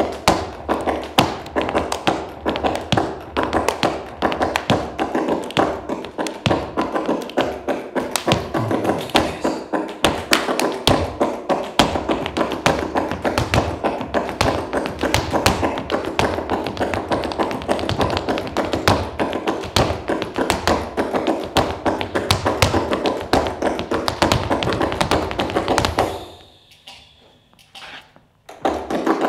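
Flamenco footwork (zapateado): rapid heel and toe strikes of flamenco shoes on a stage floor in a dense, fast rhythm. It stops suddenly about 26 seconds in, followed by a few lone stamps near the end.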